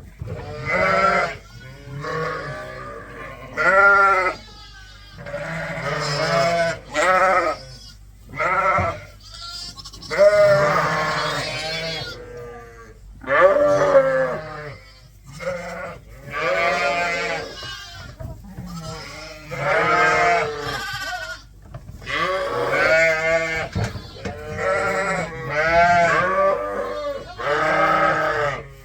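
Sheep bleating over and over: about twenty wavering calls of differing pitch, some overlapping, roughly one every second or so.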